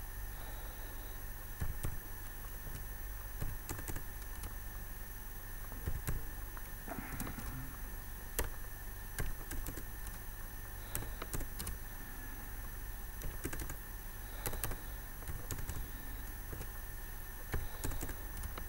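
Computer keyboard keystrokes: irregular clicks as numbers are typed in, in small clusters with pauses between, over a steady background hum.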